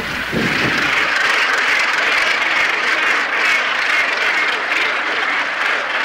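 Large northern gannet colony calling: thousands of harsh calls blended into one steady din.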